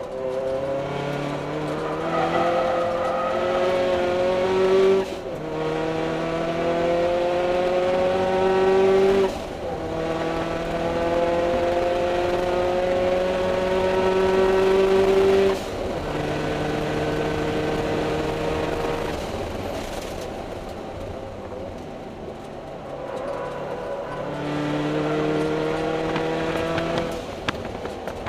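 Scion FR-S's 2.0-litre flat-four engine heard from inside the cabin under hard acceleration on track. Its pitch climbs and drops suddenly at three upshifts, then it eases off for a few seconds before pulling hard again near the end.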